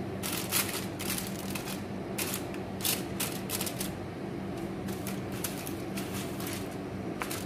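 Aluminium foil crinkling and crackling in irregular spurts as hands rub seasoned whole fish laid on it, over a steady low hum.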